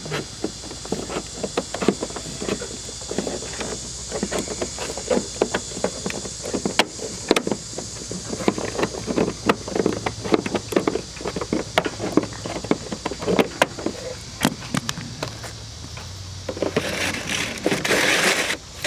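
Gutter guard and drip edge pieces being handled and fitted onto a gutter: many irregular clicks, knocks and rattles, with a longer scraping slide near the end.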